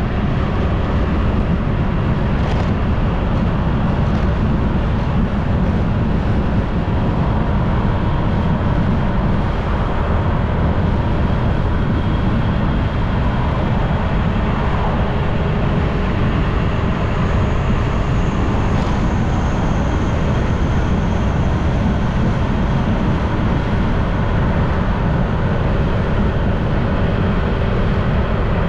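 A motorbike riding along at speed: wind rushing over the camera microphone, with the bike's engine and tyre noise underneath.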